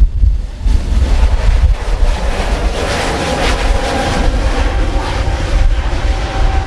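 Strong gusty wind buffeting the microphone, over the engines of a jet airliner at takeoff thrust. The engine noise swells to its loudest about three to four seconds in, carrying a faint steady whine.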